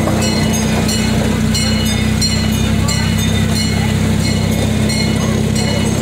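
Miniature amusement-park train running along its track: a steady low hum with a regular clicking about twice a second.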